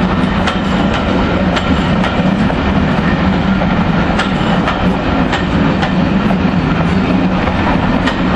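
Train running on rails: a steady loud rumble with irregular sharp clicks from wheels on the track.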